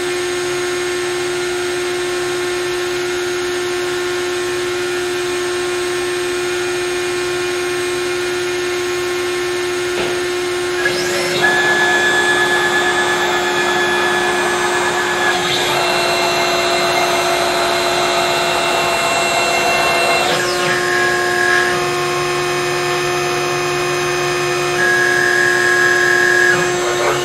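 CNC router spindle running with a steady whine while its bit cuts the finishing pass on a wooden relief carving. About eleven seconds in the cutting gets louder, and higher whining tones shift in pitch every few seconds as the head moves.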